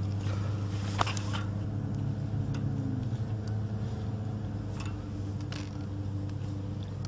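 An engine running steadily with a low, even hum, starting just before and holding throughout, with a few light clicks over it and a sharper click about a second in.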